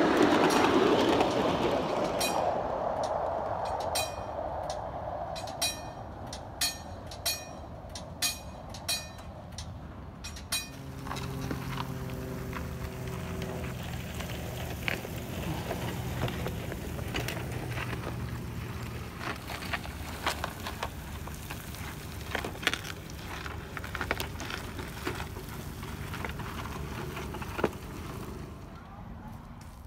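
Wooden cars of a ride-on miniature railway rolling past on the track, then a string of sharp clicks that come closer together, typical of wheels crossing rail joints. Later, gravel ballast being shovelled and worked beside the track, with scattered knocks and scrapes of the shovel in the stones and a low steady hum for several seconds.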